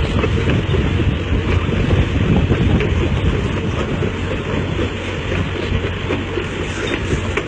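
A heavy work machine running, a loud, steady, rough rumble with no clear pitch.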